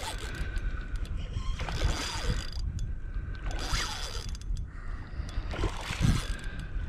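Spinning reel working under load as a big redfish fights the line: the drag and gears run in several bursts, with a faint steady whine between them.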